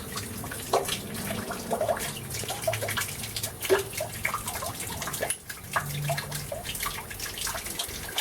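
Water running and dripping from the open pipework left where a boiler was ripped out, an uncapped leak. Splashes and drips come irregularly over a steady trickle.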